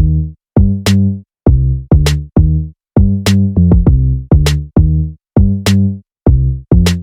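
Background music: an electronic beat with a drum machine, sharp hi-hat or snare hits about every 1.2 seconds and deep bass notes in between.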